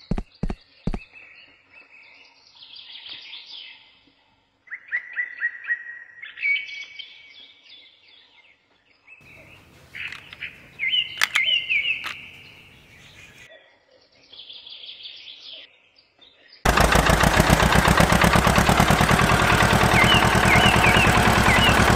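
Small songbirds chirping in quick repeated calls, with a few sharp clicks near the start and again about halfway through. About seventeen seconds in, a much louder, fast, steady rattling engine-like noise starts and holds, with the chirps still heard over it.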